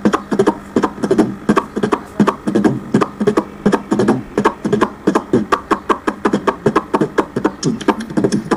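Beatboxing: a man's mouth-made percussion into a handheld microphone, a fast, steady rhythm of sharp clicks and thumps, several to the second.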